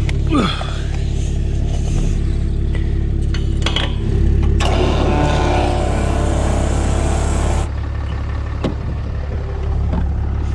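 Steady low mechanical hum of a motor running, with a louder rush of noise for about three seconds in the middle.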